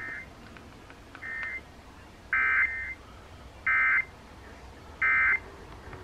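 Emergency Alert System digital data bursts (SAME tones) played through a small portable radio's speaker: five short buzzy screeches about a second and a half apart, the last three louder than the first two.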